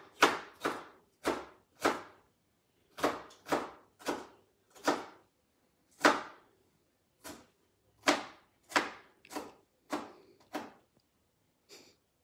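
Knife chopping down onto a cutting board in slow, separate strokes: around seventeen sharp knocks, some in quick pairs, each dying away quickly.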